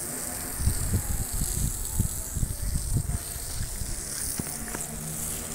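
Irregular low rumble of wind and handling on a phone microphone, over a steady hiss of water running onto a freshly cast concrete roof slab that is being flooded for curing.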